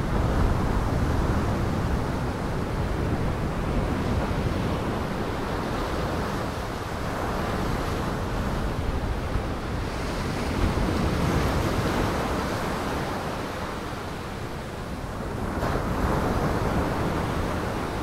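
Heavy storm surf breaking and washing ashore, with wind rumbling over it; the noise swells and eases as the waves come in.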